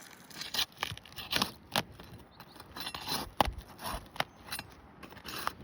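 Asphalt roof shingles being lifted and worked loose: an irregular run of sharp clicks, crackles and scrapes.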